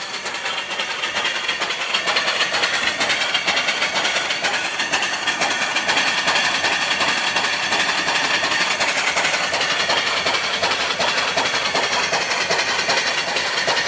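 Twin-cylinder steam engine (3-inch bore, 3-inch stroke) running on steam from a small boiler, a fast, even beat of exhaust and moving parts with hiss, growing louder over the first couple of seconds. The boiler pressure is down to about 30 psi.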